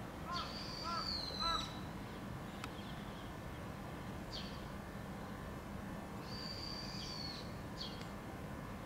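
Birds calling: three short calls close together in the first two seconds, and a high, thin note held for about a second, heard twice and each time followed by a short chirp, over a steady low background hum.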